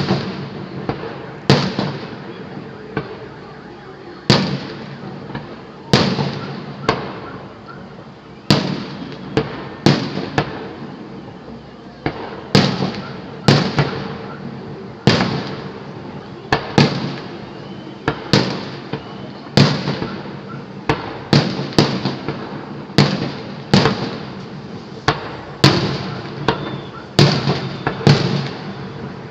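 Fireworks display: aerial shells bursting one after another, about one loud bang a second, each bang followed by a fading echo and crackle.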